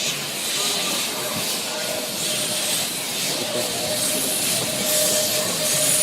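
Steam locomotive hissing steam steadily, with a thin steady whine running through the hiss.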